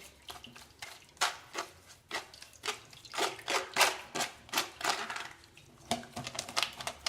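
Kitchen utensil scraping and tapping against a strainer as lemon zest and pulp are pressed to drain the juice: a run of irregular short clicks and scrapes that come thicker near the end.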